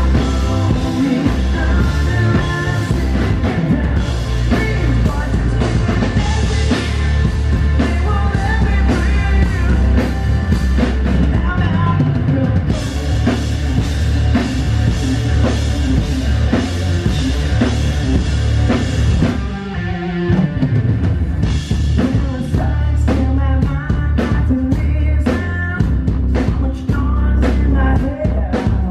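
Live rock band playing: male lead vocals over electric guitars, bass guitar and a drum kit. The music thins briefly about twenty seconds in before the drums come back with sharp hits.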